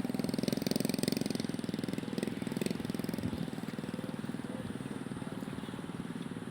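A small engine running steadily at idle, a fast, even putter.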